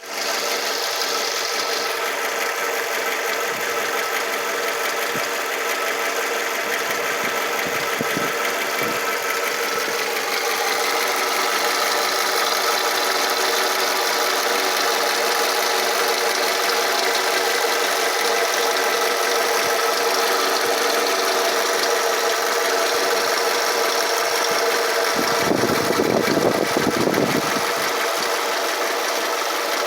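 2005 Toyota RAV4 engine running steadily at idle after ten minutes of warm-up, a constant hum with a noise the owner cannot place. Near the end there is a louder, rougher patch lasting about two seconds.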